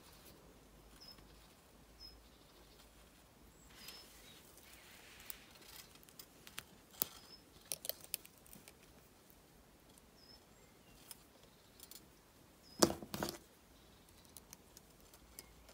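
Faint ticks, clicks and small scrapes of copper wire being bent and handled by hand, with a louder clatter of clicks about 13 seconds in.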